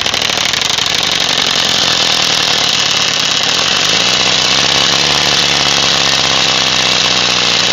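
Bicycle wheel spokes flicking rapidly against a plastic PET bottle wired to the frame, a fast steady clatter that imitates a motorbike engine. It grows a little stronger about four seconds in.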